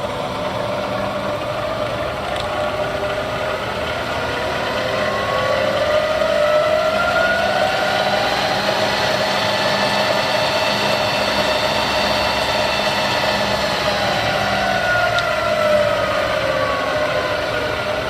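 Bridgeport 1.5 HP variable-speed milling head running in low range, forward, its spindle whine rising in pitch over several seconds, holding, then falling back near the end. The head runs smoothly in low gear, without the gear chatter it has in high.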